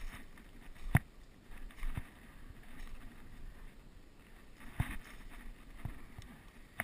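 Rustling of a person moving through brush, with a handful of irregular sharp knocks and cracks, the loudest about a second in.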